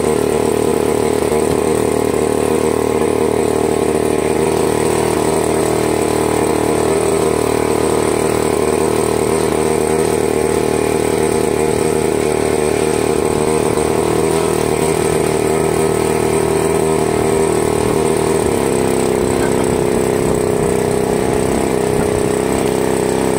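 New 38cc gasoline engine of an RC aerobatic plane running steadily on the ground during break-in. Its note shifts slightly about three quarters of the way through.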